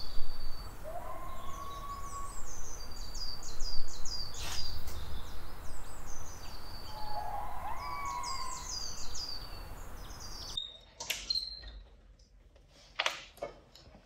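Small birds chirping in short, repeated falling phrases over a low steady outdoor rumble, with a couple of lower rising whistles. About ten seconds in the birdsong and rumble stop abruptly, and a few sharp knocks follow.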